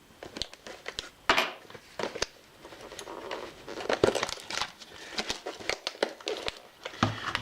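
Packaging crinkling and rustling, with scattered small clicks and knocks, as a container is opened by hand; the loudest rustles come about a second in and again near the middle.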